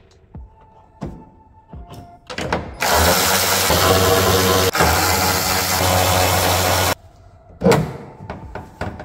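Cordless power tool loosening a trunk-lid hinge bolt. It runs hard for about four seconds, with a split-second catch in the middle, and cuts off suddenly. Light clicks and knocks come before it, and a sharp knock follows near the end.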